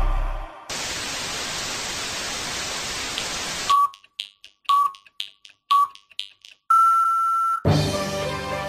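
Music fades out, followed by about three seconds of even hiss like static, then three short electronic beeps about a second apart and one longer, slightly higher beep; music comes back in near the end.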